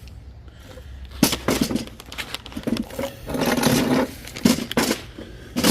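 Wind gusting against the microphone in irregular, loud, crackling blasts, starting about a second in.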